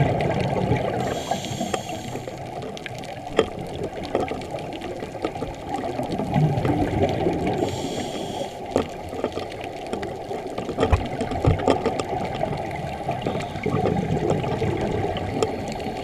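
Scuba diver breathing through a regulator, heard underwater through a camera housing: a muffled bubbling rumble of exhaled air, broken twice by about a second of hissing inhalation, once near the start and again about halfway through.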